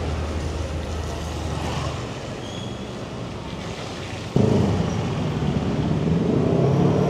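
Motorbike engine and street traffic noise heard from a moving motorbike, with a steady low hum in the first two seconds; about four seconds in the noise suddenly jumps louder.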